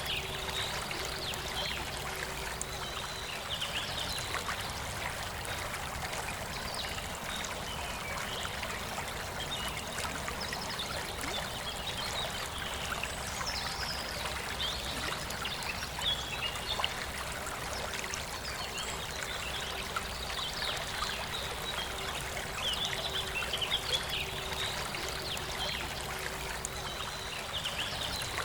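Forest river flowing steadily, with small birds chirping in short clusters every few seconds.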